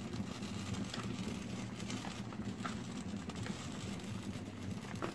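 Thick egusi soup simmering in a pot, with irregular soft pops and bubbling over a steady low hum.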